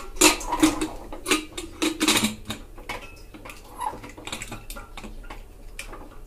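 Aluminium pressure cooker being closed: its lid and handles clink and scrape as the lid is locked shut. The metal clinks come thick over the first couple of seconds, then thin out into a few lighter ticks.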